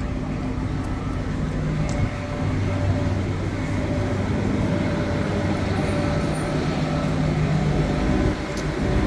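Street traffic: vehicle engines running with a steady low hum and tyre and road noise.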